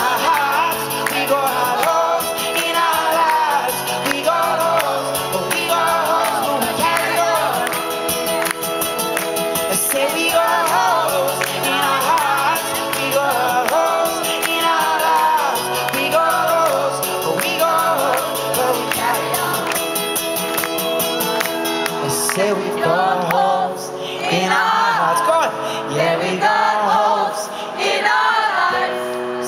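Live acoustic guitar strumming with a crowd singing along to the chorus and clapping in time.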